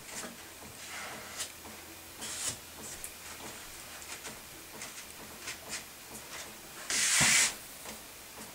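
Faint rubbing and small clicks of hands pressing a wooden trim piece against a mirror, with a short hiss about seven seconds in.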